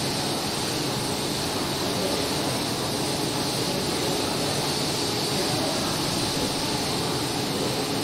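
A B&M floorless roller coaster's lift-hill chain hauling a loaded train up the incline: a steady mechanical running noise.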